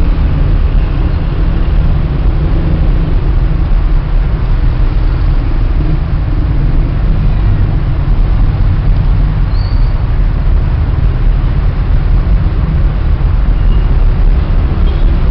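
Loud, steady low rumble of outdoor noise with no distinct events. One faint short high chirp comes about ten seconds in.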